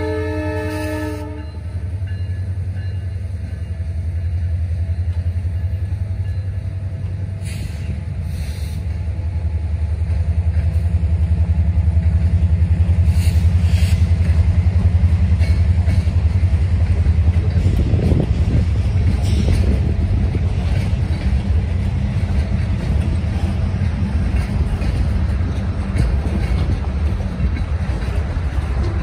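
The horn of an EMD GP20C-ECO diesel locomotive sounds and cuts off about a second and a half in. Then the freight cars of the train roll by with a loud, steady low rumble and occasional wheel clatter.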